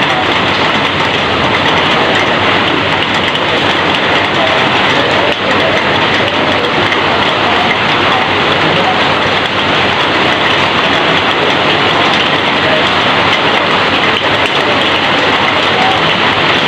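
Heavy rain falling on and pouring off corrugated roofing, a dense steady hiss that holds level throughout.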